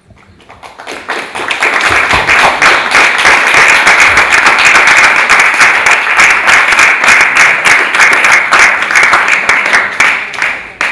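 Audience applauding: many hands clapping, swelling over the first two seconds, holding steady, then dying away near the end.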